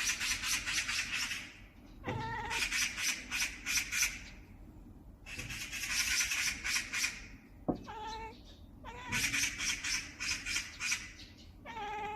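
Pet cat making short, strange chirping calls in reaction to bird sounds, alternating with about four bursts of rapid, high bird twittering.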